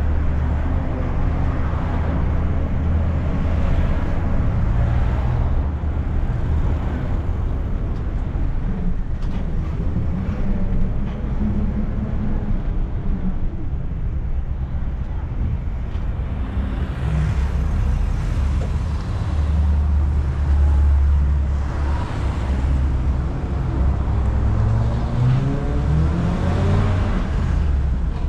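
A public minibus ('micro') running over the road with a steady low engine rumble and road noise. Late on, the engine note rises as it accelerates.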